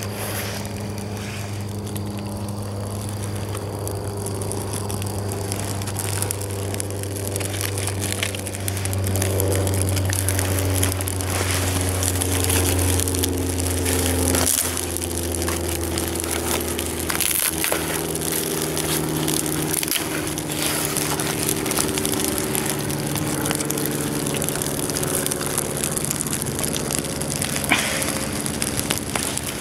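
Small campfire of birch bark and dry sticks crackling and snapping as it catches, with a sharper pop near the end. Under it runs a low steady hum of a few held tones that shift in pitch about halfway through.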